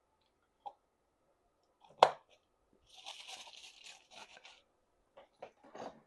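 Close-miked eating: a sharp bite or smack, then about a second and a half of crackly crunching, then a few short wet smacks of chewing.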